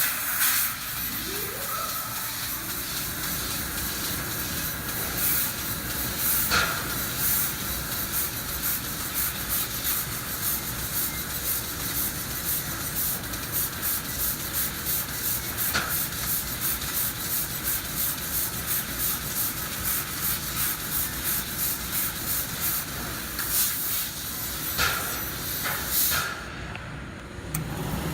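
CNC laser cutter cutting stainless steel sheet: a steady hiss of assist gas blowing through the cut, pulsing about two to three times a second as it makes a run of short cuts. The hiss drops away briefly near the end.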